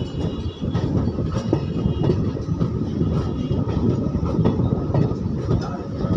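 Diesel multiple-unit (DMU) train rolling slowly, heard from its open doorway: a steady rumble of wheels and running gear, with scattered clicks as the wheels pass rail joints.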